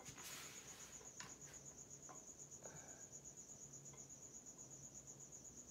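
Faint cricket chirping: a steady, high, evenly pulsed trill repeating several times a second, with a few faint clicks of handling.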